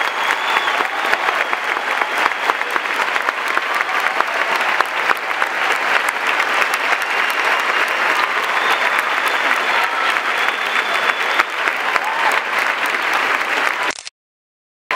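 Theatre audience applauding steadily, a dense patter of many hands clapping; it cuts off suddenly about a second before the end.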